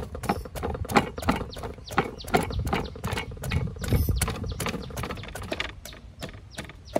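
Wooden pestle pounding red chilies and garlic in a deep wooden mortar: a quick, steady run of dull knocks, about three to four strokes a second.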